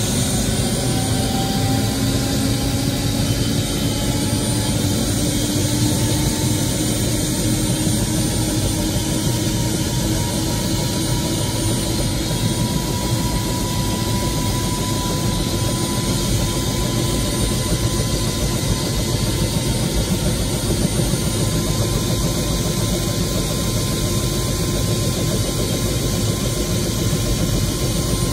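Turbine helicopter engine and rotor running up, heard from inside the cockpit: a loud, steady noise with a whine that rises slowly in pitch for about the first ten seconds, then holds steady.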